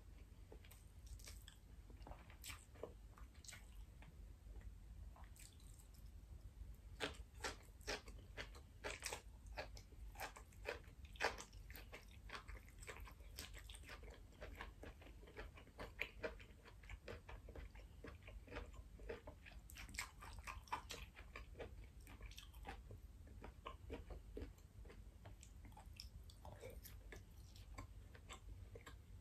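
A person chewing and biting food close to the microphone, heard as faint mouth clicks and soft crunches. The chewing comes in uneven spells, busiest about seven to eleven seconds in and again around twenty seconds.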